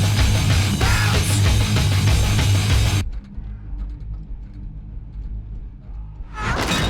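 Loud heavy-metal rock music with guitars that cuts off abruptly about three seconds in. Quieter sound follows, then a short loud swell near the end.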